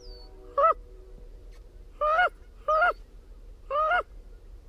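Four loud, short Canada goose honks, irregularly spaced, each note sliding up and then breaking down at its end.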